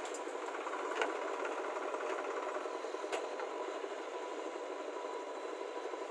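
Diesel engines of a JCB 3DX backhoe loader and a Swaraj 744 tractor running steadily while the backhoe digs, with a short sharp knock about a second in and another about three seconds in.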